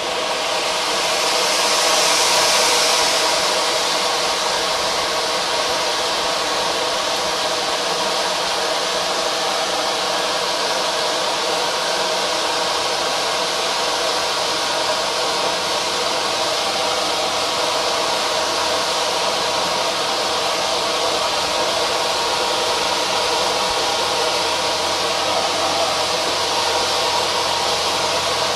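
Gold fireworks fountain (TROPIC F3S60G, a T1 category fountain) burning with a steady hissing rush, swelling over the first two seconds and then holding even.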